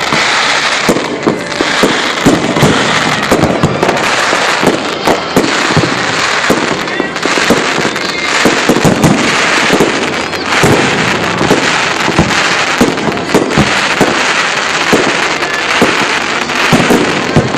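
Fireworks bursting overhead: many sharp bangs, several a second, over a steady crackle of sparkling shells.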